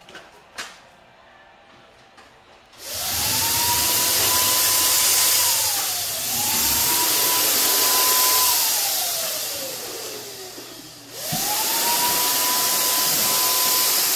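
Handheld electric paint sprayer spraying paint onto cabinets: its motor starts about three seconds in with a rising whine that settles at a steady high pitch over a loud rushing hiss. It dips once, winds down with a long falling whine, then starts again about eleven seconds in.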